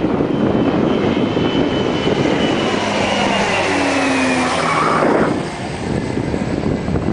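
Airplane flying low overhead, its engine drone dropping in pitch as it passes and fading after about five seconds.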